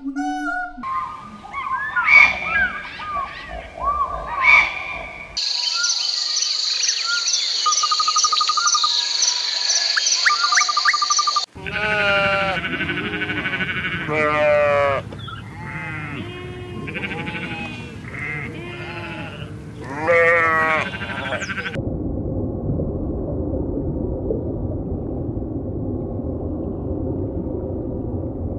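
Goats and kids bleating repeatedly, many wavering calls in a row. Before them, a stretch of high chirping calls and a steady high buzz with regular ticks. After them, a steady low rushing noise.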